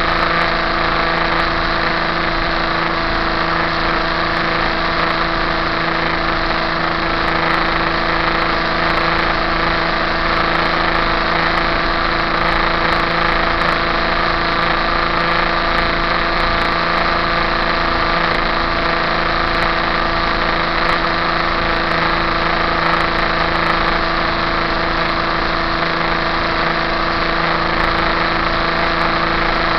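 KTM RC390's single-cylinder engine held at steady high revs at about 185 km/h, near the bike's top speed, a steady drone with no change in pitch.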